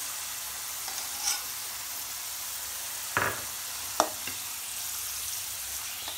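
Potato pieces deep-frying in hot oil in a metal kadai, a steady sizzle, with a metal ladle stirring and knocking against the pan a few times.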